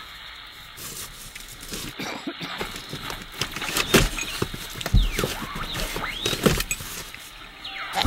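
A goat nosing and mouthing a cardboard box and packages on a vehicle's back seat: irregular rustling, scraping and light knocks of cardboard being pushed about, with a few short squeaky scrapes.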